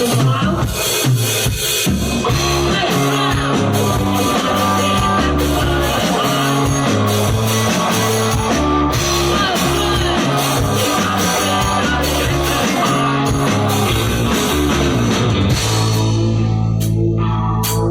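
Live rock band playing an instrumental passage: electric guitars, bass and drum kit, loud and continuous. Near the end it thins to held bass notes with a few drum hits.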